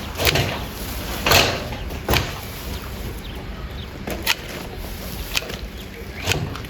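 A hand garden tool chopping or striking about six times at an irregular pace, each stroke a sharp knock.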